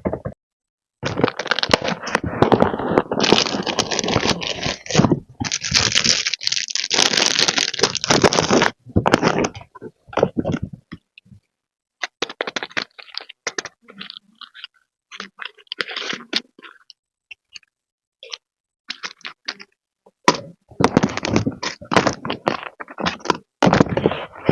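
Plastic and paper packaging crinkling and rustling as stationery is unwrapped and handled, with scattered clicks and taps in between. The densest crinkling fills the first several seconds and comes again near the end.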